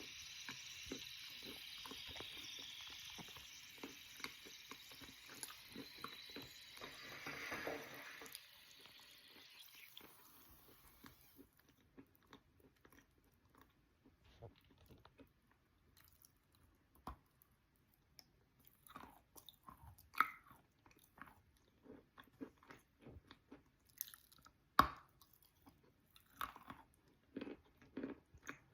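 A person biting and chewing wet chalk: soft, scattered crunches and clicks, sparse and uneven. A steady hiss fills roughly the first eight seconds before fading out.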